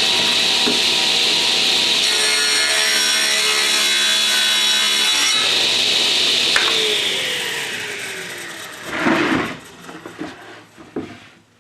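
Power tool cutting wood, running steadily, then switched off and spinning down about seven seconds in. A short scraping burst and a few knocks follow.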